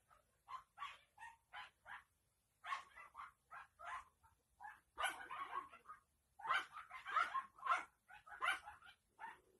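A dog barking off camera in quick, uneven runs of short barks, two or three a second, bunching into a denser flurry about two-thirds of the way through.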